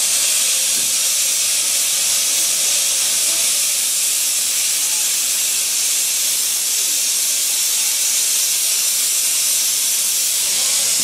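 Steam hissing steadily from No. 8 Hurricane, a 15-inch gauge steam locomotive of the Romney, Hythe & Dymchurch Railway. It is one continuous high hiss, with no exhaust beats.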